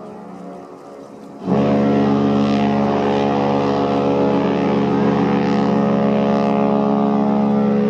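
Cunard ship's horn: the echo of one blast dies away, then about one and a half seconds in a new long, steady, deep blast sounds and holds.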